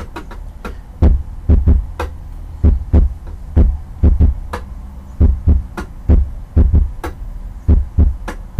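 Deep drum beat: low booming hits, often in pairs, about two to three a second, starting about a second in, over a low steady hum.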